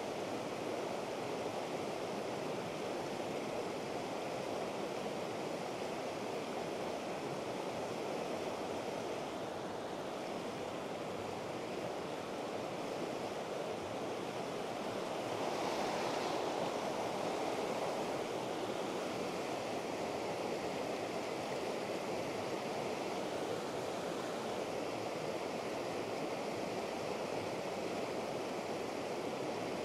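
Fast, streamy river water rushing over rocks in a steady noise, a little louder for a few seconds about halfway through.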